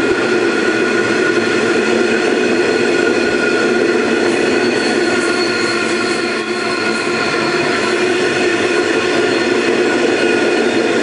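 Iron ore wagons rolling past at speed: a loud, steady rolling noise of steel wheels on rail, with a steady whine of several tones over it.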